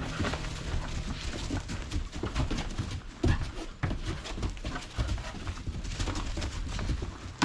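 Irregular quick clicks and taps, like Vizsla puppies' paws and claws scrabbling and running on a hard surface.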